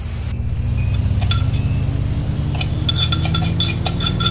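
A metal utensil clinking against a steel wok, repeated ringing taps at the same pitch several times a second from about halfway through, while shallots and chillies fry in oil. A low steady drone runs underneath.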